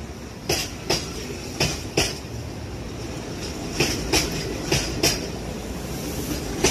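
Izuhakone Railway 7000 series electric train rolling past, its wheels going clickety-clack over a rail joint: sharp clicks in pairs, one pair every one to two seconds, over a steady rumble.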